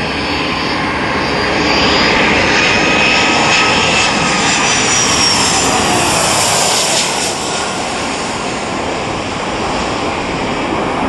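Jet airliner engine running: a loud rushing noise with high whining tones that glide in pitch, swelling about two seconds in and easing off after about seven seconds.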